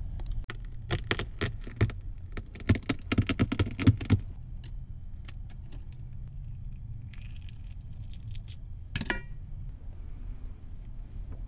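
Hard-boiled eggs being cracked and peeled by hand: a dense run of sharp crackling clicks from about one second in to about four seconds, then scattered clicks, over a steady low hum.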